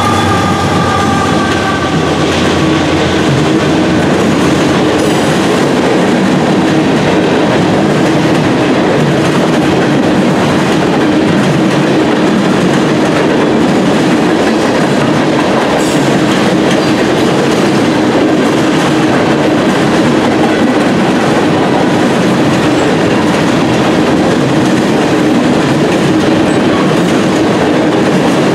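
Norfolk Southern manifest freight train rolling past at speed: a steady loud rumble and clatter of freight-car wheels on the rails, with a steady hum underneath. A chord of tones drops slightly in pitch and fades out within the first two seconds as the locomotives go by.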